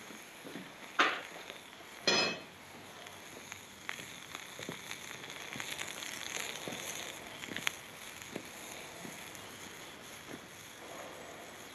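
Propane-fired melting furnace with brass heating in its crucible: scattered crackling and ticking over a steady hiss, with two louder sharp cracks about one and two seconds in.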